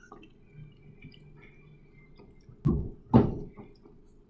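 Two dull thumps about half a second apart, the second the louder, over faint room noise.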